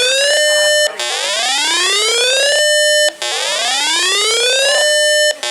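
Alert siren tone: a repeating whoop that climbs in pitch for about a second and a half, holds briefly, then cuts off and starts again, about every two seconds. It heralds an incoming emergency weather alert, the second of two back-to-back alerts.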